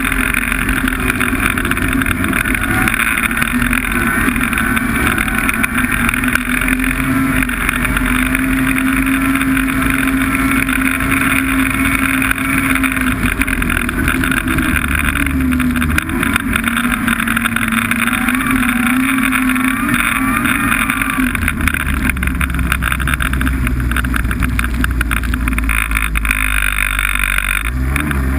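Snowmobile engine running at a steady pace on the trail, its pitch wavering slightly, over a constant rushing noise; the engine tone fades out in the last few seconds.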